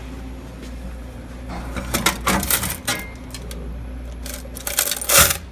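Coins clinking and rattling as change is handled from a vending machine's coin box: a burst about two seconds in and a louder one near the end.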